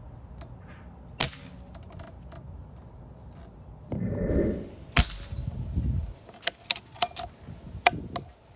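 A .177 CO2 pellet rifle firing: the loudest sharp crack about five seconds in, with another crack about a second in. Several lighter sharp clicks follow near the end.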